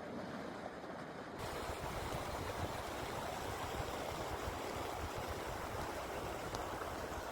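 Steady rushing of floodwater, a constant noisy wash with no distinct events; it becomes fuller and brighter about one and a half seconds in.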